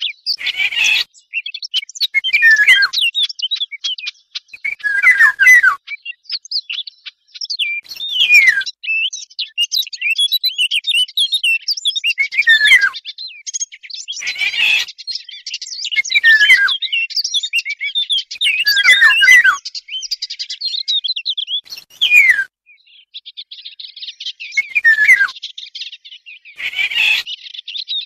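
A bird-lure recording that mixes Eurasian golden oriole calls with the song of small fig-eating warblers (fig birds). Downward-sliding calls come every two to three seconds over nearly continuous fast, high twittering.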